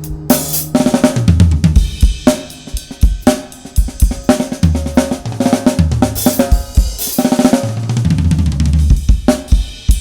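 Pacific Drums 805 series drum kit with a Mapex snare and Sabian cymbals played in a busy groove of snare, bass drum, hi-hat and cymbal hits, over a backing track with a steady bass line.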